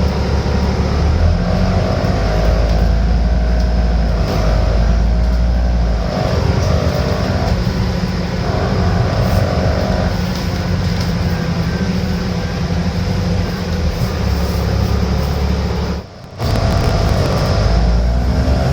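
Alexander Dennis Enviro500 MMC double-decker bus's Cummins diesel engine running on the move, its low note stepping up and down in pitch, with a whine that slides up and down above it. The sound cuts out briefly about sixteen seconds in.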